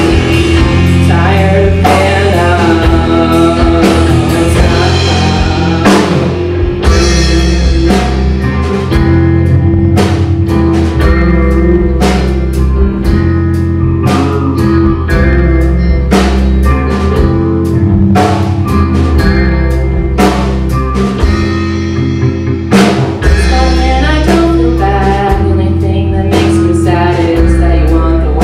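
Live rock band playing at full volume: electric guitars over a drum kit, with steady drum hits and sustained low notes underneath.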